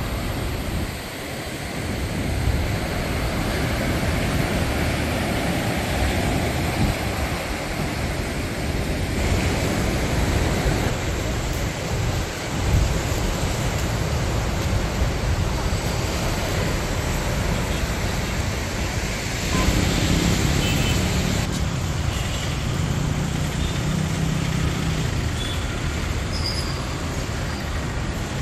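Sea surf breaking on a beach, with wind buffeting the microphone as a steady rumble. About twenty seconds in, a low hum joins for a few seconds.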